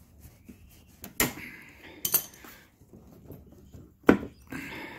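Pliers clinking on metal while the fuel line is worked off a lawnmower carburetor: three sharp metallic clicks, the loudest about four seconds in, with softer handling noise between.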